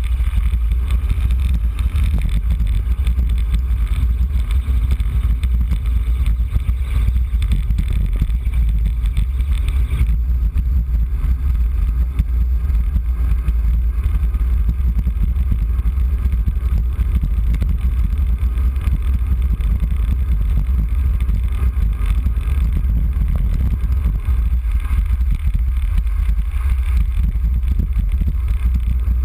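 Wind buffeting the microphone of a bike-mounted camera on a fast road-bike descent: a loud, steady, low rumble.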